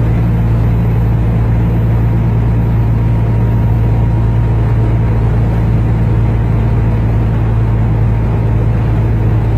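A vehicle driving at steady speed: a constant low engine and road drone with even road noise over it, unchanging throughout.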